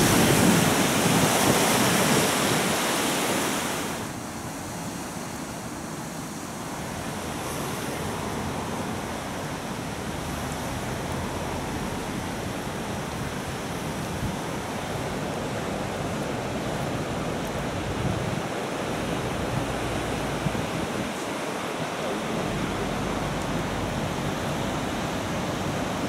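Rushing water of a river in flood, a steady noisy rush with wind on the microphone. It is louder for the first four seconds, then settles to a quieter steady rush.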